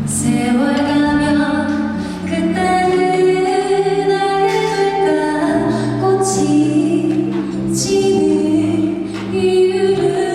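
A female vocalist singing long held notes, with a few clear hissing consonants, over instrumental music.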